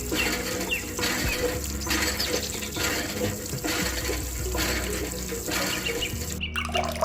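Water gushing in surges about once a second, from a miniature hand pump being worked, with bird-like chirps behind it.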